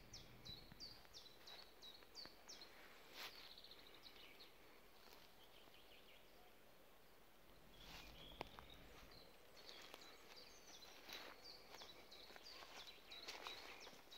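Faint songbird chirping: many short, high, falling notes in quick succession, a brief trill about three seconds in, and more chirping near the end, over soft footsteps rustling through dry grass.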